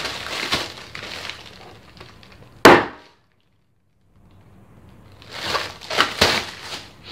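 Clear plastic air-cushion packing pillows crinkling and rustling as they are squeezed and shaken, with one sharp, very loud snap a little over two and a half seconds in.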